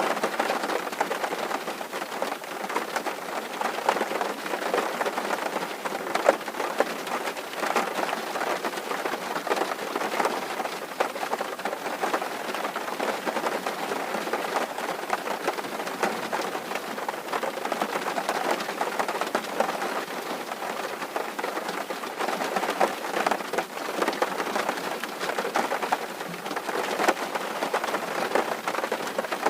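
Steady rain drumming on a tin roof, a dense patter of many small drop impacts.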